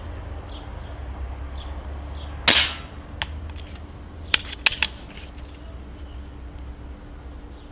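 Stoeger XM1 S4 Suppressor PCP air rifle firing once about two and a half seconds in: a single sharp, muffled crack with a short tail. It is followed by a few smaller sharp clicks.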